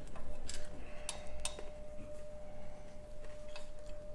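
Several light metallic clicks and ticks as the spring clip is worked onto a roller chain's master link by hand. A faint steady tone runs underneath.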